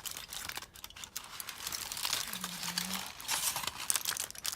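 Dense, irregular crinkling and rustling close to the microphone, with a short low hum about halfway through.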